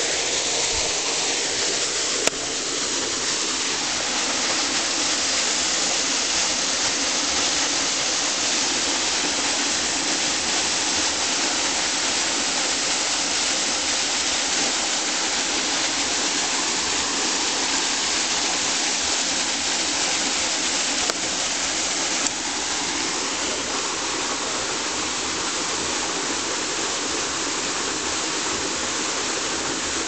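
A small waterfall, water falling and rushing steadily, with a few faint clicks over it.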